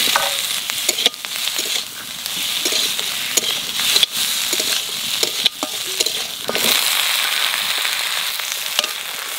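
Fried potato pieces tipped into hot oil in a kadai, sizzling while a spatula stirs and scrapes them, with a few sharp clicks of spatula on pan. Near the end, cut vegetable stalks are tipped in and the sizzle grows louder.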